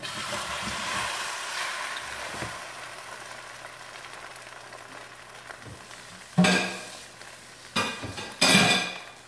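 Frittata sizzling in a hot frying pan just after being flipped and slid back in, the sizzle starting abruptly and slowly dying down. A few loud clatters break in near the end.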